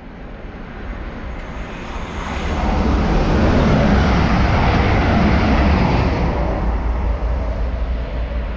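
Grand Central diesel passenger train running through the station at speed without stopping: a rush of wheels and a deep rumble that build over the first three seconds, hold, then fade as it pulls away.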